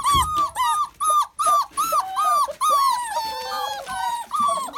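Young lurcher pups (deerhound/greyhound x whippet) whining: a quick string of short, high-pitched whines, about three a second.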